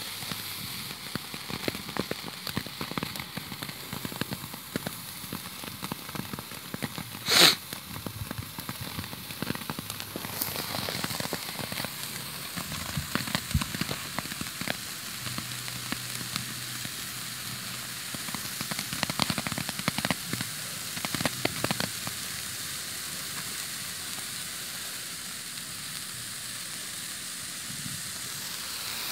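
Ground fountain firework spraying sparks: a steady hiss with dense crackling throughout, and one loud, sharp pop about seven seconds in.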